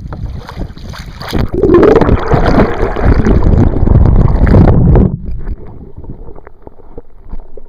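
Water rushing and gurgling loudly over the microphone as it is dipped below the surface. The sound lasts about three seconds and cuts off suddenly, followed by faint drips and ticks.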